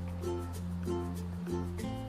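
Background music: soft plucked notes over held bass notes.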